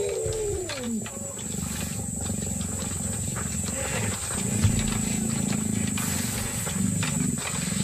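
Bull hippos fighting, giving deep rumbling bellows and grunts. A call slides down in pitch about a second in, and another deep bellow is held from about halfway to near the end.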